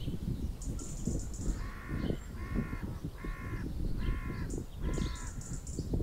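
A crow cawing five times in an even series, about one call every 0.8 seconds.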